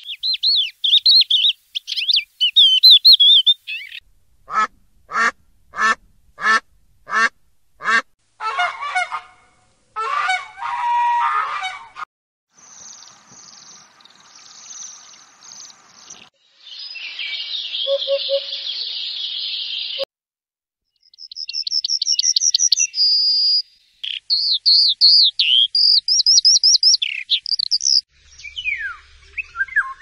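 A run of recorded songs and calls of different European birds, one species after another with short gaps between clips. It opens with a crested lark's high warbling song, goes on to a row of seven evenly spaced calls and rougher calls, then the hoopoe's low three-note 'hoo-poo-poo' past the middle, and ends with fast trills and repeated high phrases.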